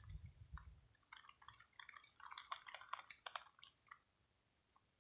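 Near silence, with faint rustling and small crackling ticks from about a second in until near the end.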